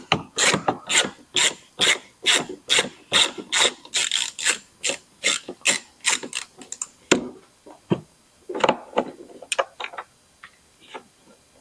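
Hand ratchet clicking in steady strokes, about two or three clicks a second, as a Loctite-secured 10 mm bolt is backed out. The steady run stops about seven seconds in, followed by a few scattered clicks and knocks.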